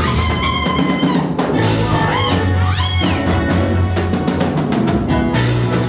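Upbeat gospel praise music: a choir singing into microphones over a drum kit and bass.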